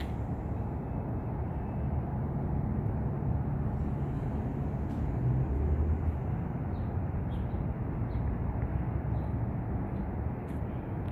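Steady low rumble of distant city traffic, with a few faint high chirps now and then.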